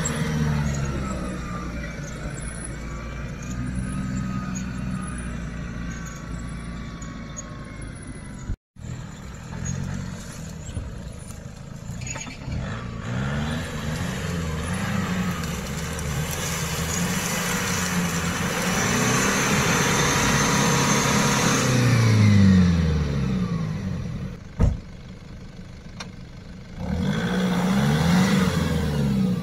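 Lifted Nissan Patrol Y61's diesel engine revving up and dropping back again and again as it drives through mud and reeds. A long climb in revs peaks about three-quarters of the way in, then slides down; it revs hard again near the end.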